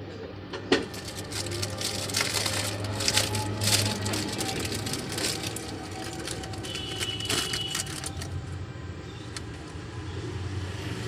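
Paper wrapping crackling and rustling as new piston rings are unwrapped and handled, with a sharp click under a second in, over a steady low vehicle hum.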